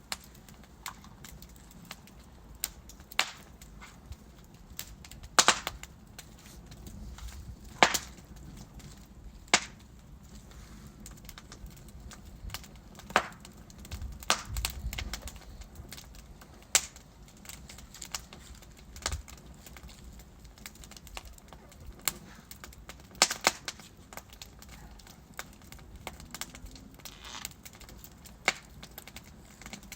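Wood fire of burning logs crackling, with irregular sharp pops and snaps over a low steady rumble of flames.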